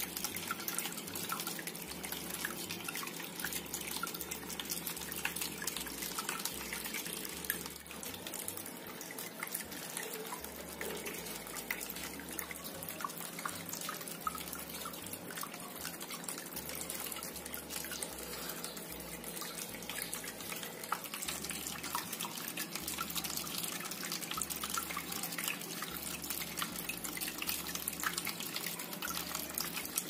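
Water from a small tabletop rock-style waterfall fountain falling steadily down its channel and splashing into the basin, a continuous trickling splash.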